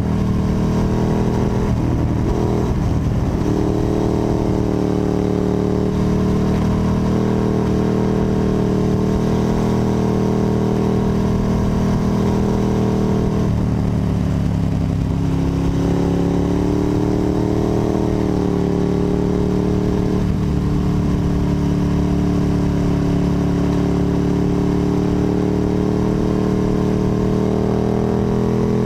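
Ducati 1098's L-twin engine and underseat exhaust running under steady throttle at riding speed. About halfway through the engine speed drops, then rises again.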